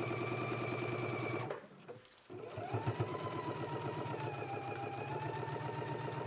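Electric sewing machine stitching a seam, running steadily, stopping briefly about one and a half seconds in, then starting again and speeding up before running on steadily.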